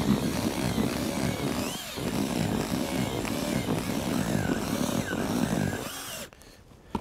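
Cordless drill with a whisk mixing paddle running in a plastic bucket, churning freshly wetted fishing groundbait. It eases off briefly about two seconds in, runs on, and stops about six seconds in.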